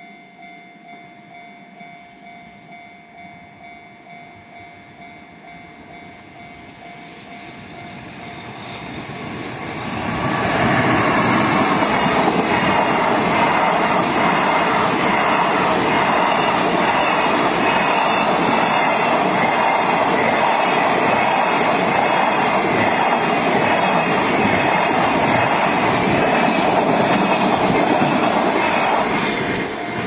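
A level-crossing warning bell rings with a steady repeating tone. From about eight seconds in, a freight train hauled by a JR Freight EF210 electric locomotive draws near, then passes loud and steady with a long run of container wagons and clattering wheels, drowning out the bell until just before the end.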